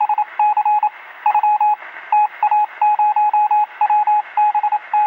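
Morse-code-style beeping: a single steady tone keyed on and off in short and long pulses, over radio hiss.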